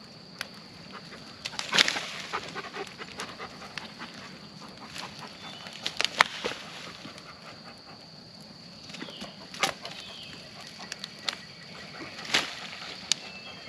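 Dry dead wood cracking and snapping, with a handful of sharp cracks spread through, as sticks and rotted pieces are broken off a stump and tossed onto a burning brush pile. A steady high-pitched hum sits in the background.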